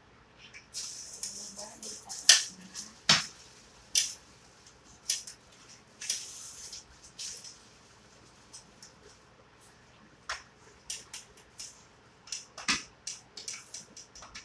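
Kitchen handling noise during sandwich making: a run of sharp knocks and clicks of utensils and dishes on the counter, the loudest about two seconds in, with bursts of crinkly rustling near the start and again around six seconds.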